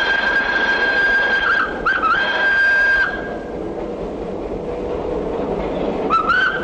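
Steam tram locomotive's whistle blowing a long, steady high note, broken briefly near two seconds in and cutting off about three seconds in, then a short rising toot near the end, over the running noise of the tram.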